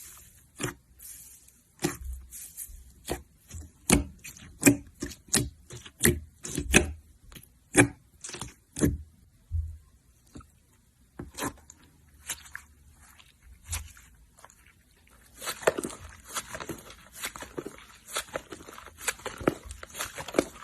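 Slime being squeezed and poked by hand, giving a run of sharp, wet pops and clicks, then a denser crackling near the end.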